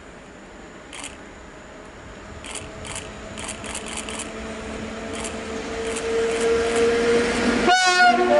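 An electric locomotive hauling a passenger train approaches, and its running noise grows steadily louder. Near the end the locomotive's horn starts to sound, a warning signal (RP1) given for the trackside watcher. There are a few faint clicks in the first half.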